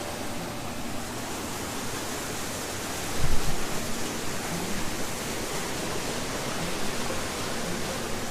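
Creek water rushing steadily through the sawmill ruins, a loud even rush. A brief low thump about three seconds in.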